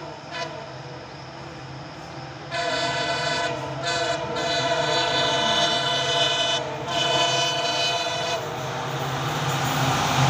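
Horn of a WDP4B diesel locomotive, faint at first, then blowing loud and long with a few brief breaks at a steady pitch. Near the end the horn stops and a rising rush of the approaching train takes over, with the locomotive's low engine hum underneath.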